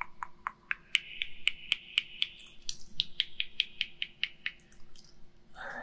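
Haircutting scissors snipping in an even rhythm, about four crisp snips a second, close to the microphone. For a couple of seconds from about one second in, a high metallic ringing runs under the snips.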